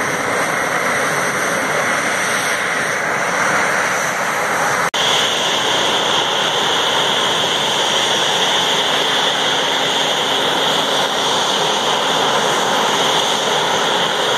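Boeing 737's turbofan jet engines running at idle: a steady rushing noise with a high whine. There is a brief dropout about five seconds in, after which the whine is stronger.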